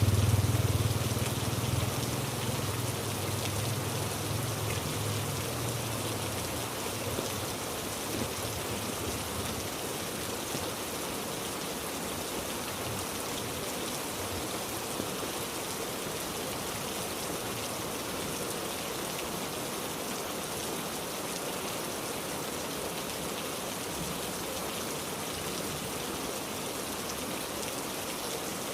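Heavy rain falling steadily, a dense even hiss of drops on surfaces. A low rumble is heard at the start and fades away over the first several seconds.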